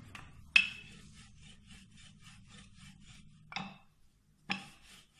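A rolling pin rolling out naan dough on a flour-dusted wooden board: quick rubbing strokes, about four a second. A sharp knock on the board comes about half a second in, and two duller thumps near the end.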